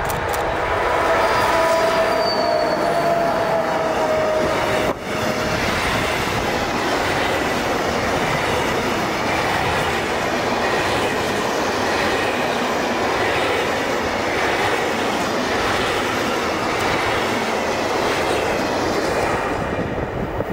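Electric freight train passing close by: the locomotive's tones fall slightly in pitch over the first few seconds as it goes past, then a long string of container wagons roll by with steady, loud wheel-on-rail noise.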